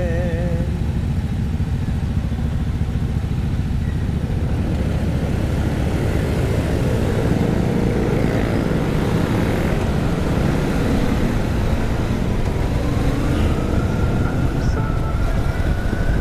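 Motorcycle engine and traffic noise on the road: the bike runs at idle at an intersection, then pulls away and rides on, with a faint rising whine as it speeds up in the last few seconds. A brief wavering tone dies away in the first second.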